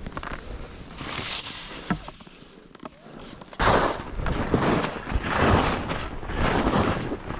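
Skis scraping and hissing through wind-packed snow in a run of quick turns, each turn a surge of noise, with air rushing over the microphone. It gets much louder about halfway through as the skiing speeds up.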